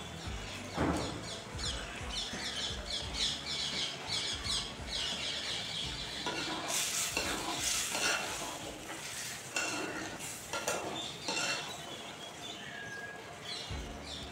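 A flat metal spatula stirring and scraping thick curry gravy in a pan in quick repeated strokes, with the gravy sizzling.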